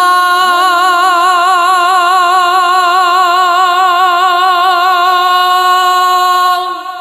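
A single long sung note held with steady vibrato in an unaccompanied-sounding devotional nasheed, dropping off shortly before the end.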